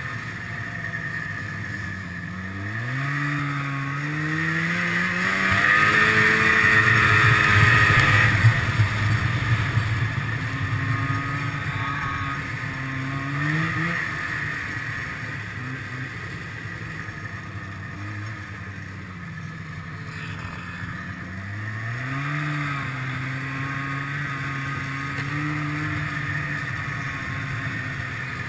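Snowmobile engine running under way. It revs up about three seconds in and again near twenty-two seconds, and is loudest from about six to eight seconds, with a rushing hiss over it.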